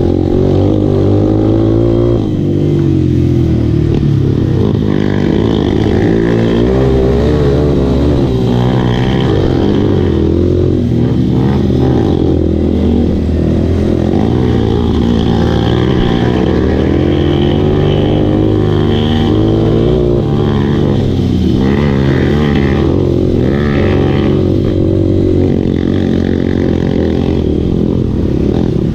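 Dirt bike engine running close under the rider on a rough dirt trail, its pitch rising and falling constantly as the throttle is worked.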